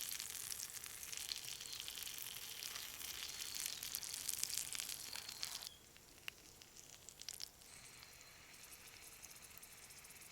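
Open wood fire crackling and hissing, dense and loud at first, then dropping abruptly about five and a half seconds in to a quieter crackle with a few sharp pops.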